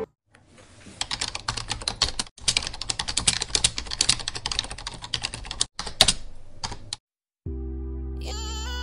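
Keyboard typing sound effect: dense, rapid key clicks with a couple of brief pauses, stopping after about seven seconds. Soft background music comes in near the end.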